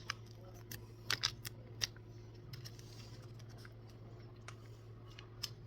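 Scattered light clicks and taps of kitchen utensils and a bowl as sauced chicken wings are tossed and mixed, with a steady low appliance hum underneath.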